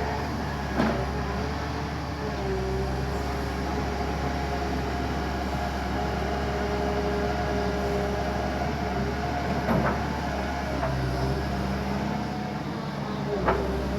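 Backhoe's diesel engine running steadily under work, with three sharp knocks, about a second in, two thirds of the way through and near the end.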